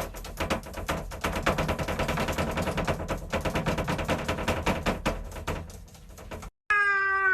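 Rapid, dense clicking or tapping, many clicks a second, for about six and a half seconds; after a brief break near the end a cat starts meowing, its pitch falling.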